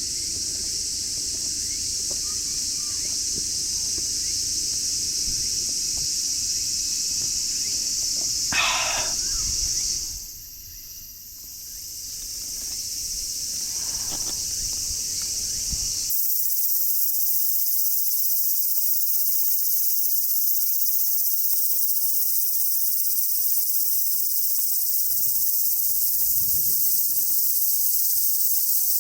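Steady, high-pitched chirring of a dense insect chorus. A short, louder call stands out about nine seconds in, the chorus dips briefly around ten seconds, and at about sixteen seconds the sound changes abruptly as the lower background drops away and the chirring continues alone.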